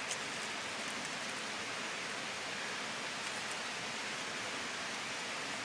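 Steady rush of running water from a stream tumbling over waterfalls.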